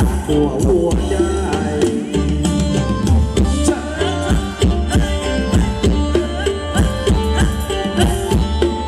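Live Thai ramwong dance music from a band. A fast, steady hand-drum rhythm and other percussion run under a melody.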